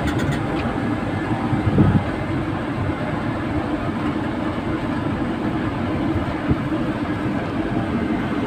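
Truck engine and road noise heard from inside the cab while driving, a steady drone, with one brief louder bump about two seconds in.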